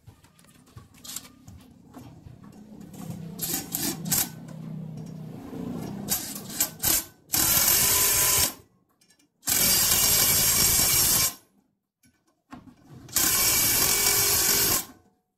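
Cordless power drill run in three bursts of about a second and a half each, working on the sheet-metal housing of a rice mill's husk blower. Before the first burst there is lighter clatter of metal parts being handled.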